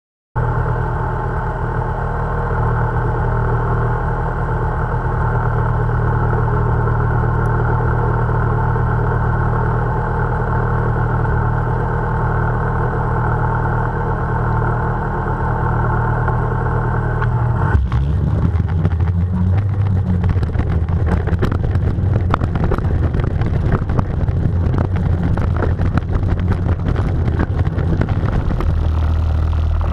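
Ski-Doo Mach Z's Rotax 1000 SDI two-stroke twin idling steadily, picked up by a camera clamped to the sled. About two-thirds of the way in the sound turns rough and rattly as the clamp-mounted camera shakes and shifts with the sled's vibration.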